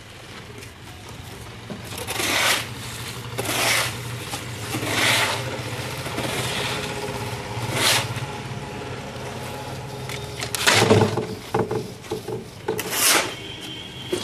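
Steel shovel scraping through wet concrete mix, a scrape about every second and a half, then louder scrapes near the end as the mix is shovelled into a steel precast wall-panel mould. A low steady hum sits underneath for most of the first part.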